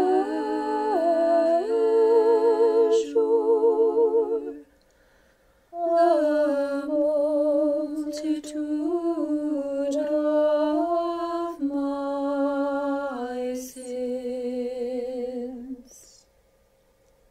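A small a cappella choir singing Orthodox liturgical chant in an Old Bulgarian chant style. Several voices hold long notes in harmony with vibrato. They break off briefly about five seconds in and stop near the end.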